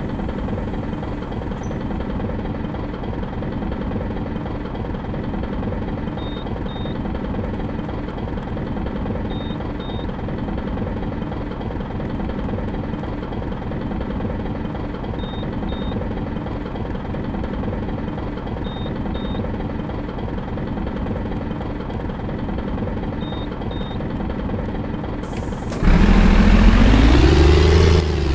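Bus diesel engine idling steadily with a rumbling beat, a faint double beep repeating every few seconds. Near the end it suddenly gets much louder and revs, its pitch rising.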